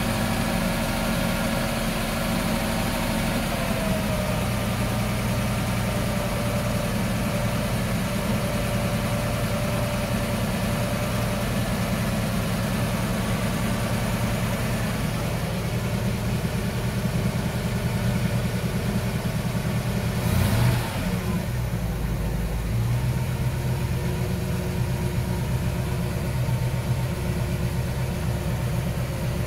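Chris-Craft Catalina 281's port 305 cubic-inch V8 inboard marine engine idling steadily on a test run. A short bump about two-thirds of the way through.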